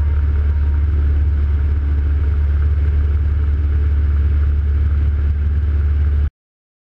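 Cockpit noise of a Robin DR400 light aircraft in flight: the piston engine and propeller give a steady, loud, deep drone, heard inside the cabin. It cuts off abruptly near the end.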